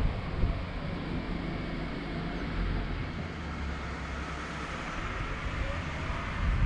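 Steady road and engine noise of a car being driven, picked up by an in-car dash recorder, with a low hum underneath.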